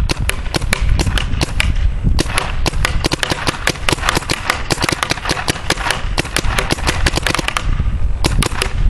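Empire Mini GS electronic paintball marker firing in strings. First come a few spaced shots, then after a short pause a long burst of rapid fire lasting about five seconds, then a brief stop and a few more shots near the end.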